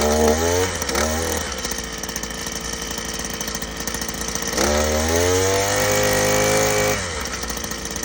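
Oleo-Mac brushcutter's petrol engine blipped up at the start, settling to idle, then revved up about halfway through, held at high revs for about two seconds, and dropped back to idle.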